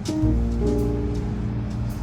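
Background music: held notes changing in steps over a steady bass, with light percussive ticks.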